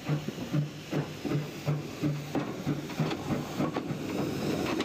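Small saddle-tank steam locomotive working slowly past, its chuffing and the clank of its motion beating evenly at about three beats a second over a steady hiss.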